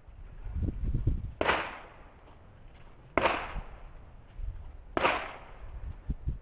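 Three gunshots from elsewhere on an outdoor shooting range, about two seconds apart, each with a short echoing tail, with low rumbling noise between them.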